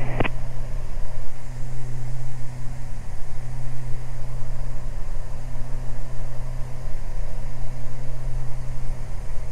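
Beechcraft Baron G58's twin six-cylinder Continental IO-550 piston engines and propellers running steadily in flight, a constant low drone heard inside the cabin.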